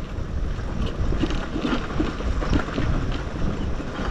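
Wind buffeting the microphone of a motorcycle riding down a rough gravel track, with scattered knocks and rattles as the wheels go over loose stones.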